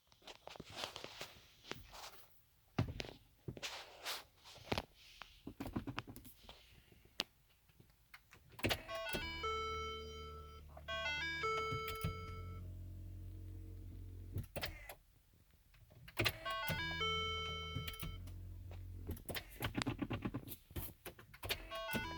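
Clicks and knocks, then the Lincoln MKT's electronic interior warning chime sounding twice, each time a quick run of stepped tones that settles on a held tone over a low steady hum; no engine cranking is heard, in keeping with a car that won't start.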